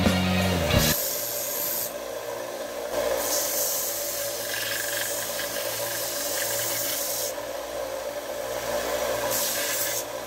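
Small bench belt sander grinding the edge of a copper disc: a rasping hiss that swells in three spells as the piece is pressed to the running belt and eased off, over the hum of the sander.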